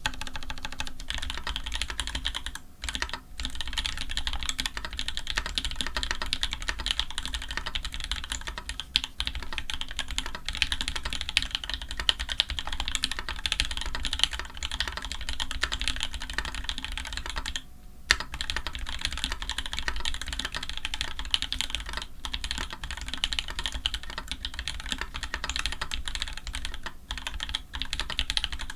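Continuous fast typing on an Orion v2.5 custom mechanical keyboard fitted with lubed Tangerine linear switches on an aluminium plate and GMK keycaps. It is a dense, even stream of key strokes that breaks off briefly twice, near 3 s and near 18 s.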